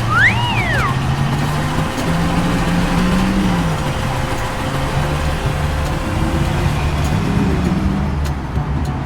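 Truck engine sound effect running, its pitch stepping up and down, with a short rising-and-falling squeal about half a second in.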